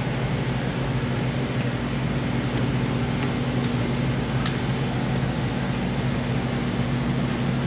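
Steady low mechanical hum with a constant drone, broken by a few faint clicks.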